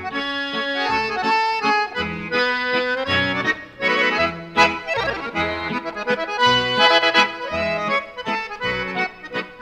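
Accordion music: a tune played over a steady, regularly repeating bass accompaniment.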